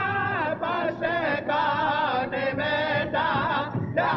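Music of chanting voices, sung in short phrases with wavering held notes.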